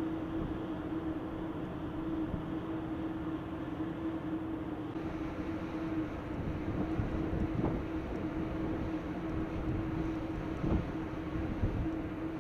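A steady machine hum with one constant tone over a low rumble, with a few short knocks in the second half.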